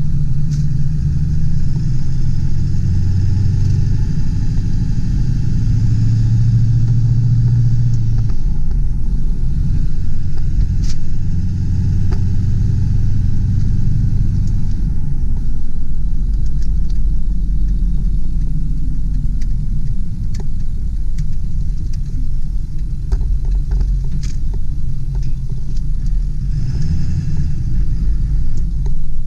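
The 1999 Ford F-250 Super Duty's 7.3-litre turbo diesel V8 is running under way with low road rumble. Its steady engine note is strongest for the first eight seconds or so. After about fifteen seconds the sound is mostly low rumble.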